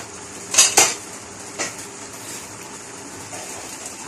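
Metal clinks against a large aluminium cooking pot: two sharp ones a little over half a second in and a lighter one about a second later. Under them runs a steady hiss from the pot of meat sauce at a rolling boil.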